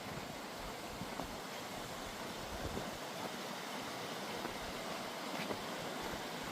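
Steady rushing of Tumalo Creek, a mountain creek running fast along the trail.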